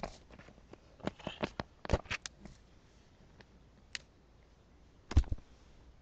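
Scattered knocks, taps and scrapes of a cardboard box being handled and opened, with the loudest thump about five seconds in.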